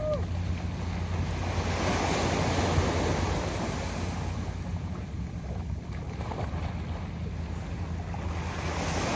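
Surf washing onto the shore, with wind rumbling on the microphone. The wash swells about two seconds in and again near the end.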